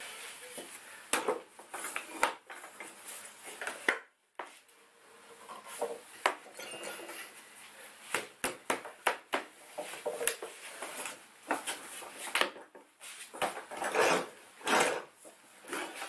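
Irregular knocks and clatter of hand tools and wooden parts being handled, with a short break about four seconds in.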